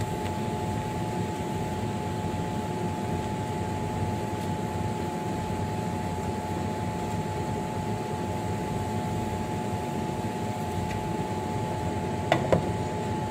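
A fan runs with a steady hum. Near the end there are two quick clinks of a glass lid against the frying pan.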